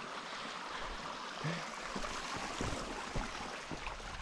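Steady rushing noise like running stream water, with a few soft thumps.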